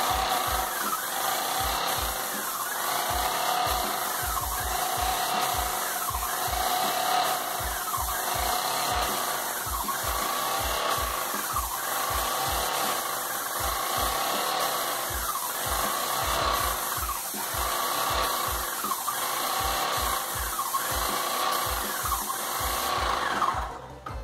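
Graco Magnum LTS 15 airless paint sprayer running at raised pressure while spraying paint onto a wall: a steady spray hiss over the rhythmic pulse of the piston pump, about two beats a second. It drops away shortly before the end.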